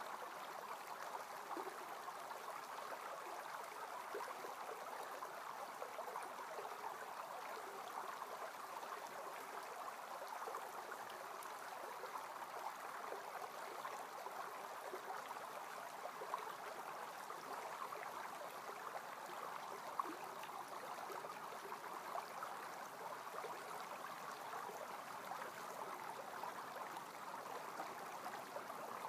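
Faint, steady rushing of a creek's flowing water.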